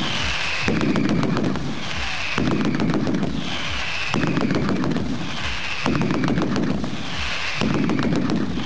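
Mascletà firecracker barrage: dense strings of rapid bangs in pulses about every second and a half to two seconds, each pulse followed by a high whistle falling in pitch.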